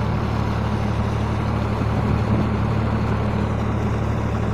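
Irrigation water pump set running steadily, a constant low mechanical hum.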